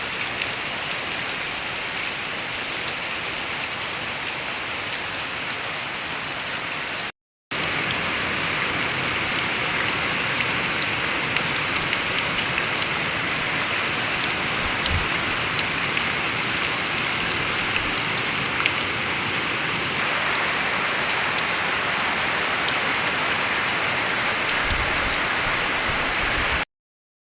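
Steady rain falling, a dense even hiss with scattered sharp drop ticks. It cuts out for a moment about seven seconds in, then resumes, and stops abruptly shortly before the end.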